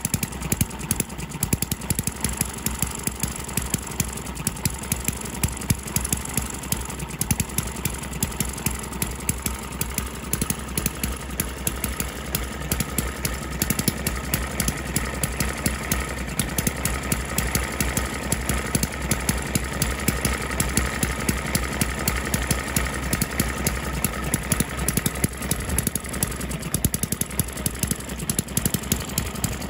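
ET6 model hit-and-miss engine running, a fast clatter of small mechanical clicks with irregular louder firing beats.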